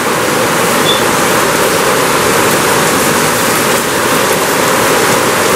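Heavy downpour: rain falling hard, a loud steady rush.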